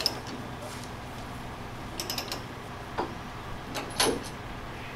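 Short metallic clinks and rattles from gear being handled at the back of a loaded lowboy trailer, coming at the start, about two seconds in, and again around three and four seconds in, over the steady low hum of an idling truck engine.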